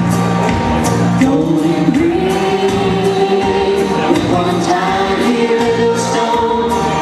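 Country duet: a man and a woman singing into microphones over instrumental accompaniment with a steady beat, the voices holding long notes.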